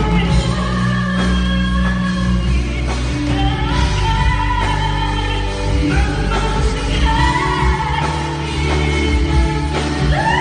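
A female pop singer singing live with band accompaniment in a concert hall, drawing out long held notes over a steady bass.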